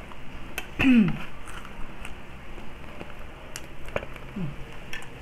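People eating crispy pata (deep-fried pork knuckle) with their hands: scattered sharp chewing clicks, with a short hum falling in pitch about a second in and another near the end.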